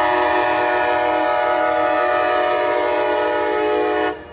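Amtrak ALC-42 Charger locomotive's horn sounding one long chord of several notes for the grade crossing. It stops sharply about four seconds in.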